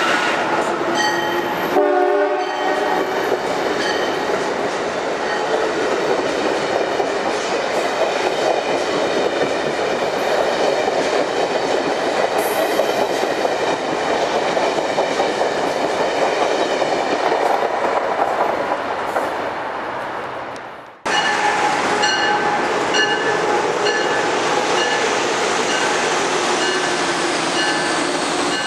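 Train running through the station with a steady rumble and wheel noise on the rails. Several pitched tones sound together near the start, and short repeated tones come after a break about 21 seconds in.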